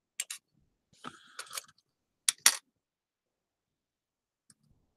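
Small metal craft cogs clicking against each other and the work surface as they are handled: two light clicks at the start, a short rustle about a second in, then two sharper clicks a moment later.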